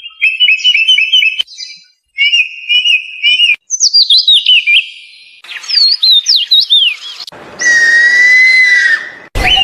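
A quick run of different birds' calls, cut one after another: rapid repeated chirps, then a run of falling notes, then downward-sweeping whistles, and near the end a long held whistle of two steady pitches.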